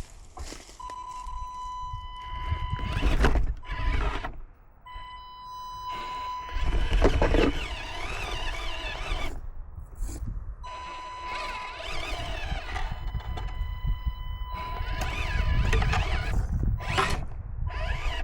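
Axial SCX24 mini RC crawler's electric motor and gearbox whining, the pitch wavering up and down with the throttle, with a steady high tone in long stretches. Several sharp knocks are heard, about one every few seconds.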